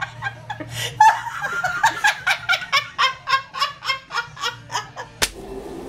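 A woman laughing hard and uncontrollably in a rapid run of high-pitched laughs, about four a second, which cuts off abruptly about five seconds in.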